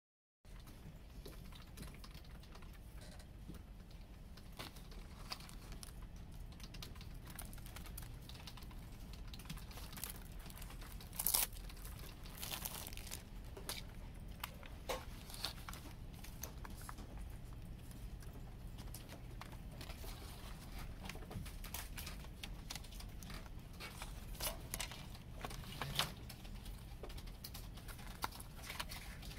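Hands unpacking and opening a CD in a plastic jewel case: crinkling and tearing of the wrapping, with scattered clicks and taps from the plastic case. The loudest crackle comes about 11 to 13 seconds in, and there is a sharp click near the end. A faint steady hum runs underneath.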